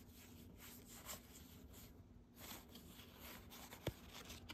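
Faint rustle of thin cardboard trading cards sliding against each other as a stack is leafed through by hand, with a single light tick near the end.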